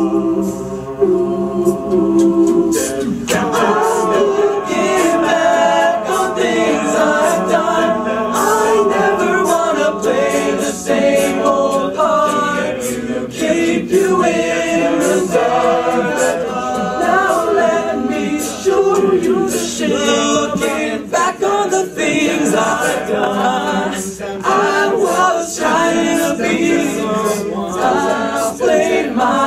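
All-male a cappella group singing a pop song in close harmony. A held chord opens, and fuller voices enter about three seconds in, with short percussive clicks running through.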